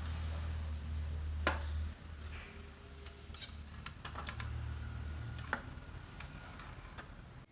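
Scattered sharp clicks and light taps of small hard parts being handled, irregular like typing, over a steady low hum.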